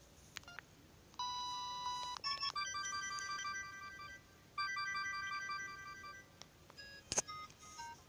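LG GB102 mobile phone's small speaker playing an electronic ringtone: a short tune of bright beeping notes in two phrases with a brief gap. A sharp click comes about seven seconds in.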